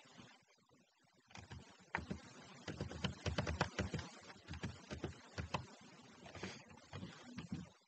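Computer keyboard being typed on: a quick, uneven run of keystrokes starting about a second in.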